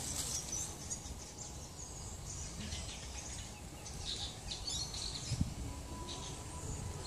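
Outdoor ambience with small birds chirping and trilling in the background, and a soft low thump about five seconds in.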